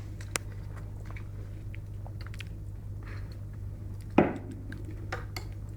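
Close-up eating sounds of ice cream being eaten: scattered small clicks and mouth noises, with a sharp knock about four seconds in, over a steady low hum.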